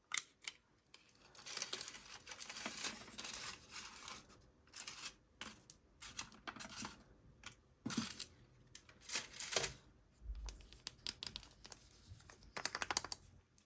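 A surprise egg that has already broken open, handled and its toy unwrapped by hand: soft irregular crinkling and tearing of wrapping with light clicks, all fairly quiet.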